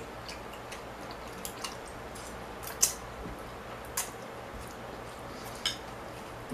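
Mouth sounds of eating lo mein noodles: scattered sharp, wet smacking clicks of chewing and sucking in noodles, the loudest about three seconds in, over a steady low background hum.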